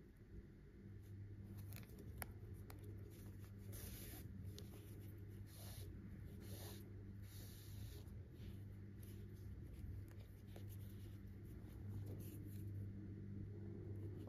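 Soft scratching and rustling of a sewing needle and yarn being drawn through a stuffed crochet piece, with a few small clicks, over a steady low hum.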